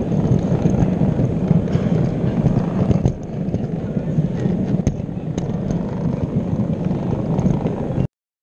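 O gauge model locomotive running along the track, its wheels and motor making a steady close rumble with a few sharp clicks. The level dips slightly about three seconds in, and the sound cuts off suddenly near the end.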